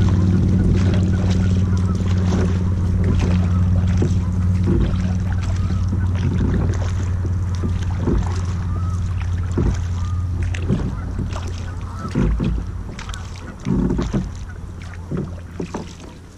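Double-bladed kayak paddle dipping and splashing in calm water, water dripping off the blades, a stroke about every one to one and a half seconds. Under it a steady low hum slowly fades away.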